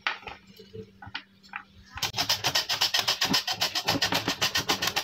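Raw potato rubbed rapidly back and forth across a metal mandoline slicer, shredding it into thin strips: a fast, even run of rasping strokes starting about two seconds in. Before that, a few light clicks from handling the cut strips.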